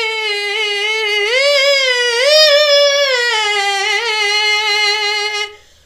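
A boy's high voice singing a naat unaccompanied, drawing out one long melismatic note. The note rises and wavers about a second in, settles back down, and breaks off just before the end.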